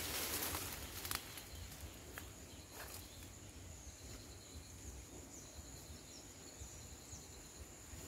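A steady high-pitched insect drone over a low rumble, with rustling of plants in the first half second and a couple of light snaps about one and three seconds in.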